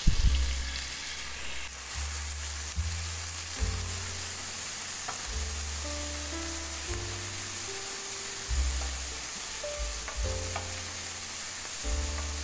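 Chopped bacon sizzling in hot melted ghee in a frying pan, stirred with a wooden spatula. Background music with a stepping bass line plays underneath.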